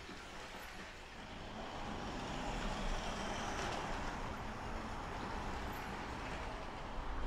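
Märklin model train running on three-rail metal track: a steady rushing rumble of wheels and motor that grows louder over the first couple of seconds, then runs on evenly.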